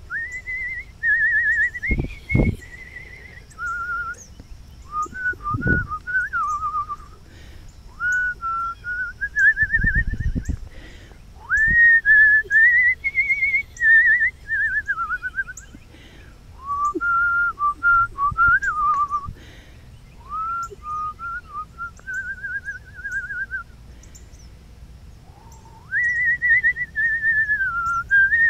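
A person whistling a slow tune in long notes with a quick, wavering vibrato. The whistling pauses for about two seconds near the end, then starts again. A few low thumps come through in the first ten seconds.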